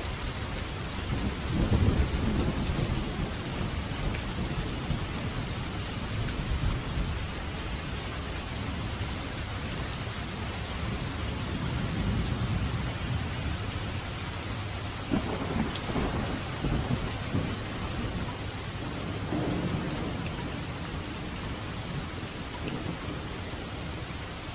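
Steady rain falling, with low rolling rumbles of thunder about two seconds in and again around fifteen to twenty seconds in.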